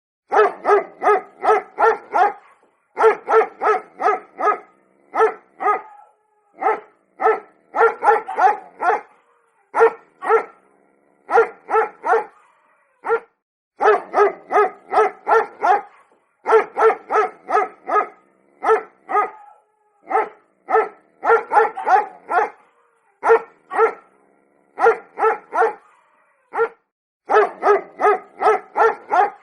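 Pomeranian barking: short, sharp barks in quick runs of three to six, with brief pauses between the runs.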